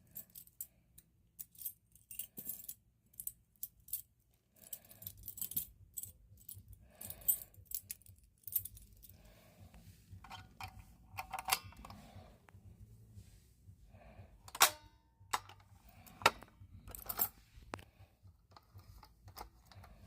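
A ring of keys jangling, with many small metallic clicks and clacks as a key is worked in a Firelight BG10 fire alarm pull station to unlock and reset it.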